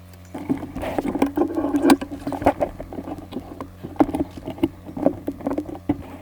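Close rustling with many small knocks and clicks, the sound of clothing and gear being handled right by the microphone. It starts suddenly about a third of a second in and keeps going in irregular bursts.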